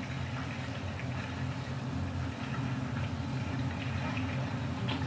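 A steady low engine drone that runs evenly without changing pitch.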